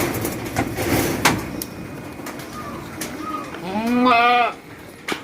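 A goat bleats once about four seconds in, a single wavering call just under a second long. A few knocks come in the first second and a half.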